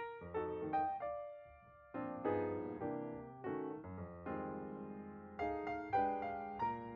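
Background piano music: notes struck one after another in a gentle melody, each note dying away.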